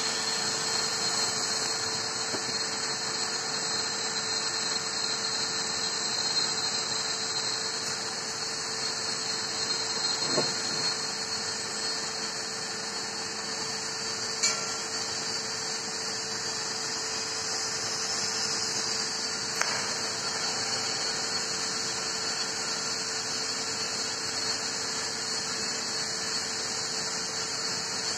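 Steady high hiss with a low steady hum from TIG welding equipment, unchanged throughout, with three sharp clicks about ten, fourteen and twenty seconds in.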